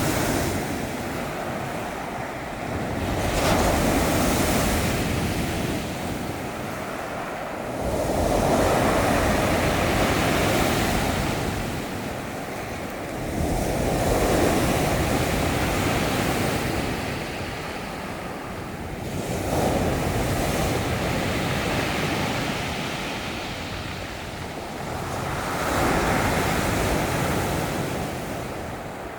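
Rough sea surf: waves breaking and washing ashore in surges about every five to six seconds, with wind buffeting the microphone.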